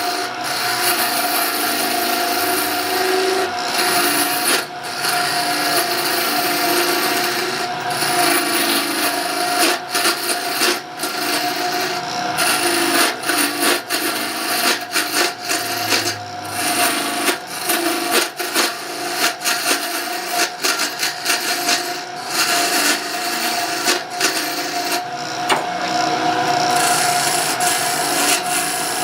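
Wood lathe running with a steady whine while a turning tool cuts the spinning wood, a harsh scraping hiss broken by many brief gaps as the tool lifts off and meets the wood again.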